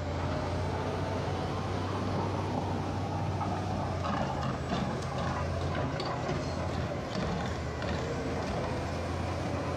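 Crawler bulldozer's diesel engine running steadily under load as it pushes earth and rock, with scattered clanks and knocks from its tracks and blade.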